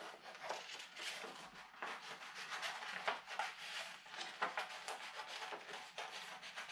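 Scissors snipping through black card in irregular short cuts along a curved line, with the card sheet rustling and shifting as it is turned.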